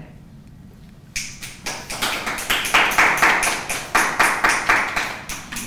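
Small-group applause: a few people clapping in quick, distinct claps for about four seconds. It starts about a second in and tails off near the end.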